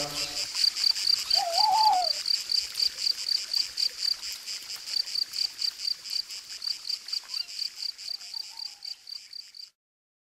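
A high-pitched rhythmic chirping, about five pulses a second, slowly fading out and stopping near the end, with a short wavering whistle about one and a half seconds in.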